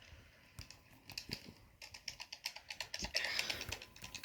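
Quick, irregular clicking of buttons on a handheld game console, sparse at first and busier after about a second, with a brief rustle a little after three seconds.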